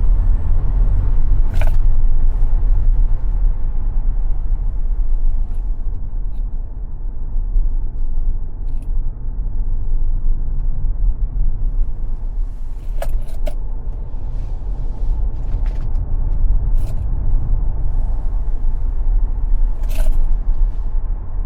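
Tesla Model X electric car driving at speed on a racetrack: a steady low rumble of tyre and road noise with no engine sound, and a few sharp knocks or clicks along the way.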